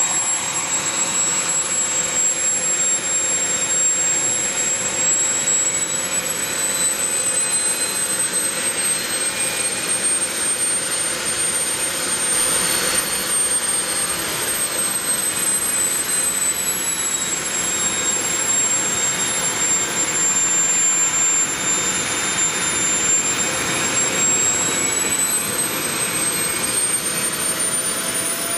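Small homemade model turbojet engine running steadily on a test stand: a steady jet rush with a high-pitched turbine whine that drifts slightly up in pitch and back down.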